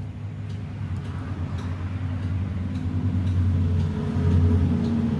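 Road traffic: a passing motor vehicle's low engine drone that swells, loudest about four to five seconds in.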